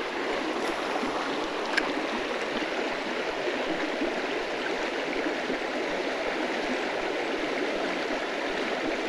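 Small mountain trout creek flowing steadily over a shallow riffle, an even rush of running water, with one brief click about two seconds in.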